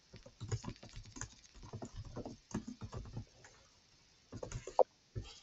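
Typing on a computer keyboard: a quick run of keystrokes as a short chat message is typed, then a pause and a few more key presses near the end.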